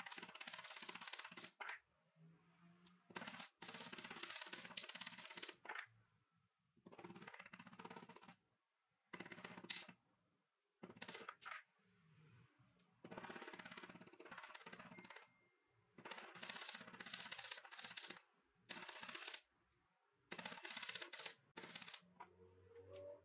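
Dome face of a steel chasing hammer tapping rapidly on twisted brass wire laid on a steel bench block, in runs of a second or two with short pauses between, flattening the twisted wire.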